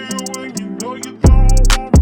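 Background music with a heavy bass beat, a plucked guitar line and crisp hi-hat ticks.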